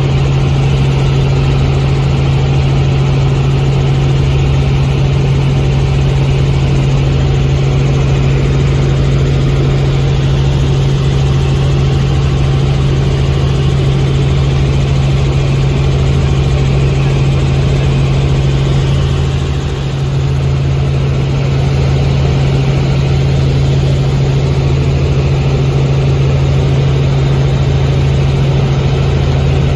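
Helicopter in flight heard from inside the cabin: a loud, steady drone of rotor and engine with a strong low hum and a pulsing rumble beneath it, dipping briefly about twenty seconds in.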